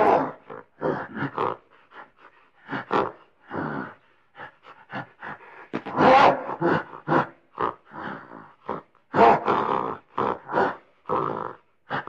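Gorilla grunting and grumbling: a long series of short, rough grunts with brief gaps between them, loudest around six and nine seconds in.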